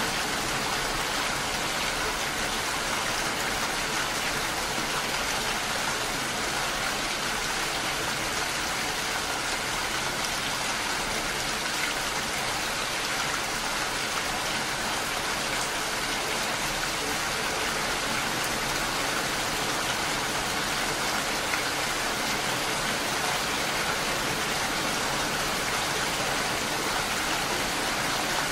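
Steady rain falling, an even hiss with no single drops or other events standing out.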